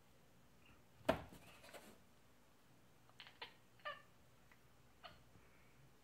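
Domestic cat making odd, short cracking calls: one sharp, loud call about a second in, then a handful of brief chirp-like calls a few seconds later.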